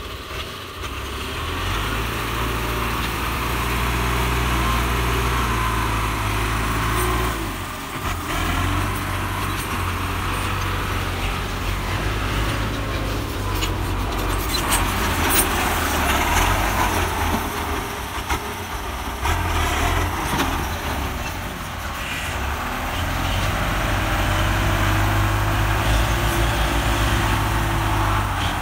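Diesel engines of Belarus MTZ-820 tractors running under load as they work through deep mud. The engine note drops off briefly about eight seconds in, then picks up again.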